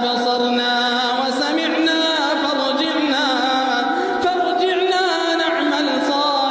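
Music with a melodic line that bends and glides over sustained tones, in a Middle Eastern style.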